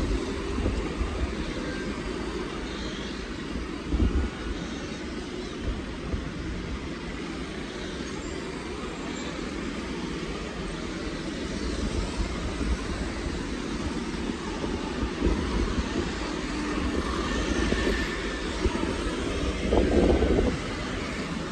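Street traffic: motor scooters, cars and an auto-rickshaw passing in a steady drone of engines and tyres, with louder swells as vehicles go by close, about four seconds in and near the end.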